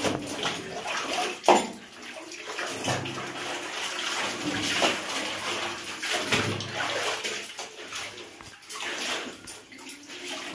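Soapy water sloshing and splashing in a plastic tub as clothes are scrubbed and squeezed by hand, with one sharp, louder smack about a second and a half in.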